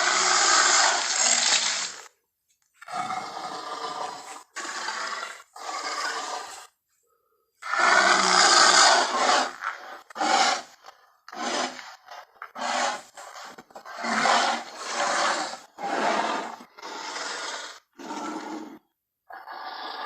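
A string of about a dozen short, harsh, rasping King Kong giant-gorilla roars, grunts and huffs played one after another as separate sound-effect clips, each cut off abruptly. The loudest come at the start and about eight seconds in.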